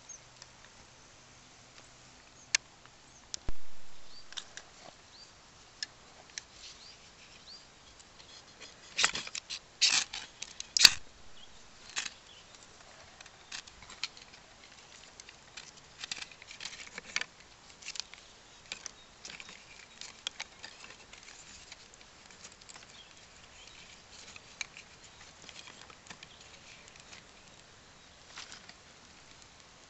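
Small fire of dry sticks crackling, with irregular sharp pops and snaps that come thickest about a third of the way in.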